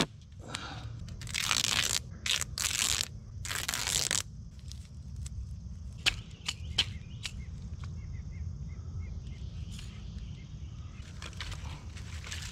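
Duct tape ripped off the roll in several long tearing pulls during the first few seconds, then a few sharp clicks over a steady low rumble.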